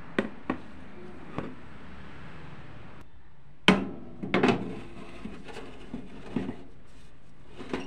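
A metal baking tray knocking and clattering against the rack of a small electric oven as it is slid in. A few light taps come first, then a sharp clank with a short metallic ring a little over halfway through, followed by a quick cluster of clattering knocks.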